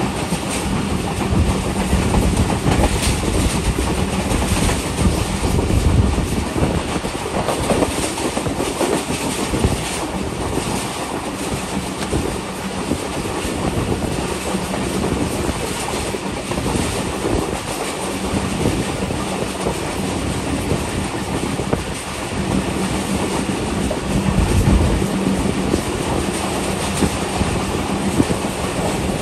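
Diesel-hauled passenger train running along the track, heard from aboard: a steady rumble and rush of air, with the wheels clicking over rail joints and a steady low hum underneath.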